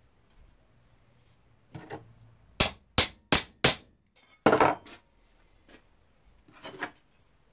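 Hammer blows on a steel sheet-metal plate being shaped: four sharp strikes in quick succession, about three a second, then a heavier, longer clash, with softer knocks before and after.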